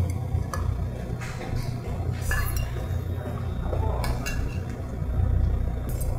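Metal spoon clinking against a stainless steel rice bowl and an earthenware soup pot as rice is tipped into pork-and-rice soup and stirred through the broth. There are a handful of separate clinks over a steady low hum.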